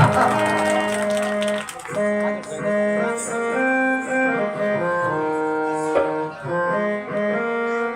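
Instrumental music: a melody of held notes on a keyboard instrument, each note sustained about half a second to a second before moving to the next.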